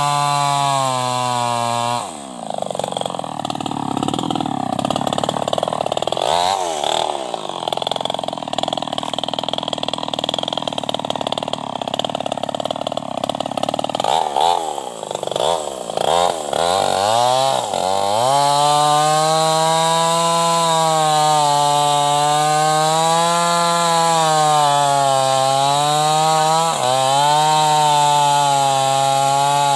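New West 588 two-stroke chainsaw with an open straight-through exhaust running hard. Its note changes abruptly about two seconds in and runs lower and rougher, swoops up and down in pitch for a few seconds around the middle, then settles back into steady high revs with a slow waver.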